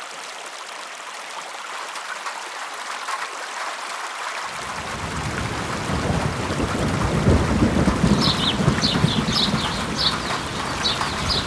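Rain-and-thunder sound effect: a steady rain hiss growing louder, with a low thunder rumble coming in about four and a half seconds in and building. A run of short high chirps sounds near the end.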